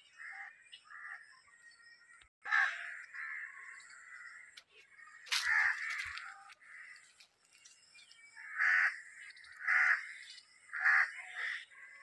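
Crows cawing again and again: softer caws at first, then loud ones about two and a half seconds in and near the middle, and a run of three or four near the end. A sharp click comes just before the middle caw, over a faint steady high-pitched background.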